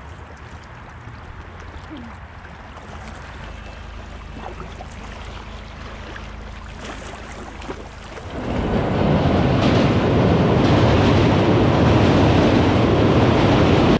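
Paddle strokes and river water for several seconds, then from about eight seconds in a loud, steady noise as a passenger train crosses the steel truss railway bridge overhead; it cuts off suddenly at the end.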